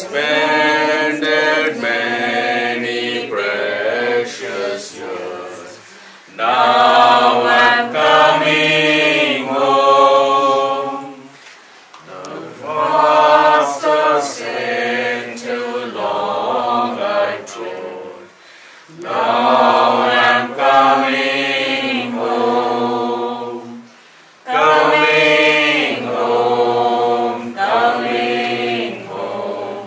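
A group of people singing a hymn unaccompanied, in long phrases with short breaks between them.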